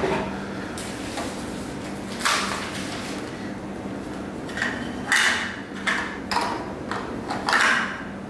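Plastic parts of a Nespresso Essenza Mini coffee machine being handled and fitted by hand: a series of short scrapes and knocks at irregular intervals, busier in the second half, over a faint steady hum.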